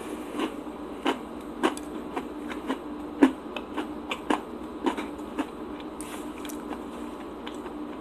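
Close-up eating sounds of chewing a Hershey's Cookies 'n' Creme bar: irregular crisp clicks and crunches, about two a second, thinning out after about five and a half seconds.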